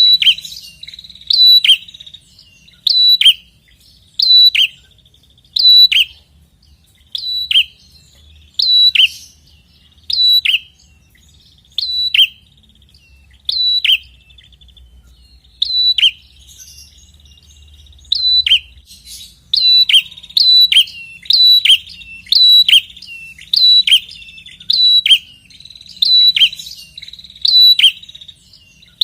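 Prenjak kepala merah calling: a loud, sharp note repeated over and over, each note a short high call that drops in pitch. The calls come about one every second and a half, break off briefly around the middle, then quicken to nearly two a second in the second half.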